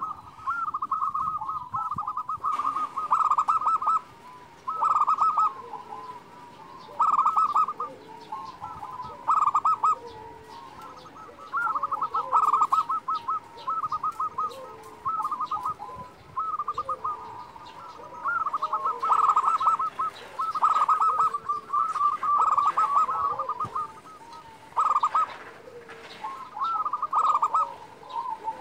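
Zebra dove (perkutut) cooing in repeated bursts of quick rolling notes, a new phrase every second or two. Faint high chirps sound behind it.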